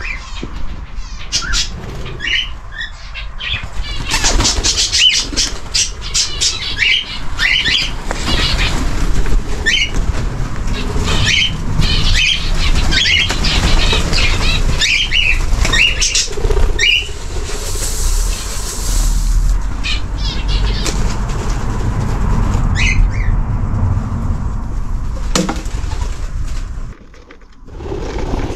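Birds giving many short high calls, with wings flapping.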